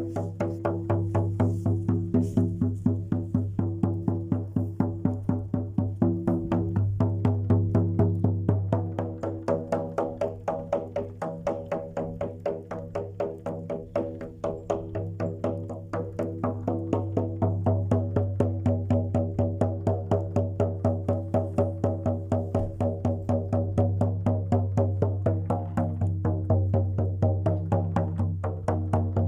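Jaw harp (vargan) played in a fast, even plucking rhythm over a steady low drone, its overtones shifting to make a melody.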